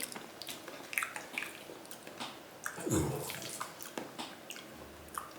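Chewing raw salmon, with scattered small clicks and smacks from the mouth and a fuller sound about three seconds in.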